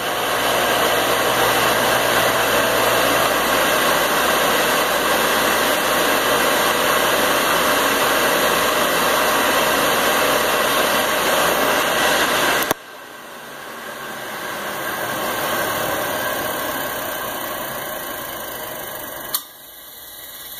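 Dayton 3 hp single-phase electric motor running at full speed with a loud steady hum and whir, then unplugged about 13 seconds in: the sound drops sharply and the motor coasts down. Near the end a sharp click as the centrifugal switch drops back in onto the start winding, a sign that the switch is working properly.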